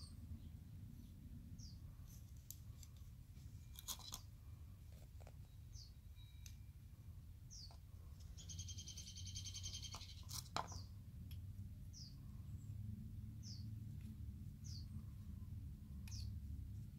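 A bird repeating a short, falling chirp every second or two, with a rapid trill about halfway through. A few light clicks of copper pipe fittings being handled stand out above a low rumble.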